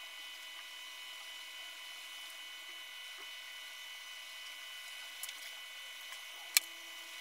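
Steady faint electrical whine made of several fixed high tones over a low hum, broken by one sharp click about six and a half seconds in.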